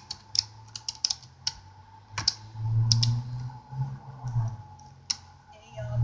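Scattered light clicks and taps from handling the top of a wooden beehive, over a low buzz of honeybees that swells and fades as they fly close past the microphone.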